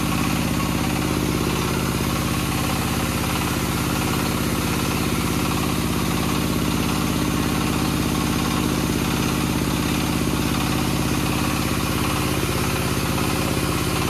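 6N70 combined rice mill running steadily under load, husking and polishing paddy, with a continuous mechanical hum and a fast, even pulse.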